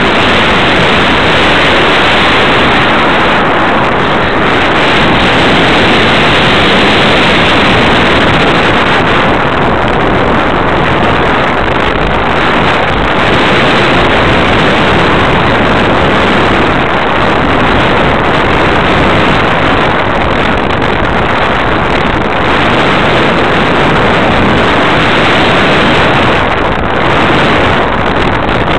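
Loud, steady rushing noise of airflow and motor heard from a camera riding on a radio-controlled Super Cub model aeroplane in flight.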